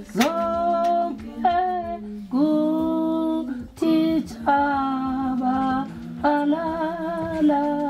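A voice singing slow, long held notes on a soundtrack, the pitch wavering on the later notes, over a steady low held note.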